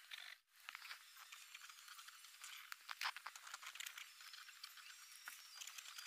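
Faint scratching and small ticks of a pen writing on paper, with a brief drop-out about half a second in and a few louder ticks around three seconds in.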